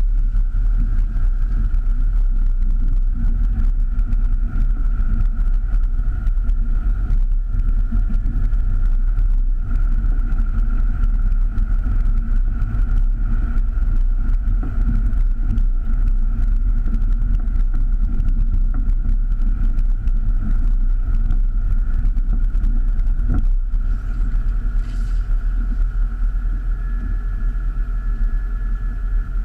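Off-road vehicle engine running steadily while driving slowly over a rough dirt-and-gravel track, with a heavy low rumble, a steady high whine, and frequent knocks and rattles from the bumps.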